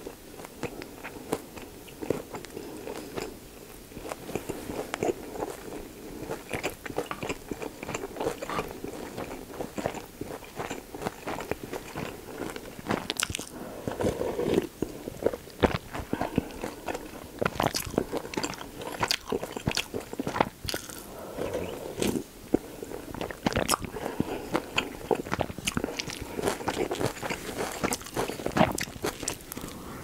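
Close-miked chewing of pork belly gimbap: wet mouth sounds with frequent crisp crunches and clicks, some of them sharper and louder.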